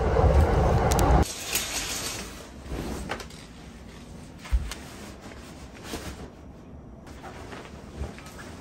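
Loud steady background rumble that cuts off abruptly about a second in. It is followed by soft rustling of cotton fabric as a pillow is worked into a pillowcase, with a soft thump about halfway through.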